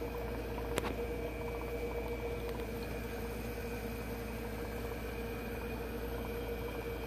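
Steady hum of running aquarium equipment, with a single light click about a second in.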